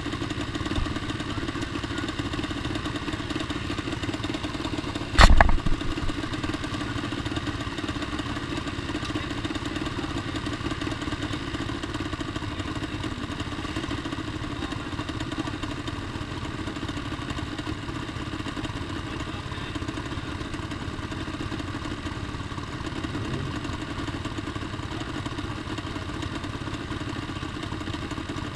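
A Yamaha Banshee two-stroke twin engine on a racing lawnmower idling steadily. A single sharp bang about five seconds in.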